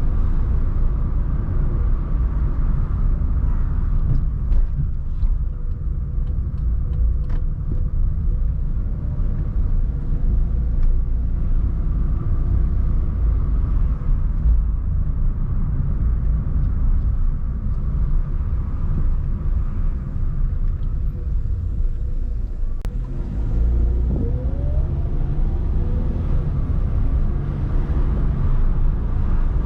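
Car driving: a steady low rumble of engine and road noise, with an engine note that rises in pitch briefly near the end.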